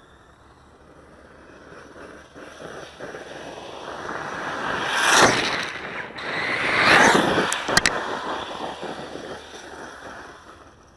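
A brushless electric 1/8-scale RC monster truck passing close by on gravel, its motor whine and tyre noise swelling and fading. It peaks just after five seconds in and again around seven seconds in, with a rising and falling pitch on the second pass and a couple of sharp clicks just before it fades away.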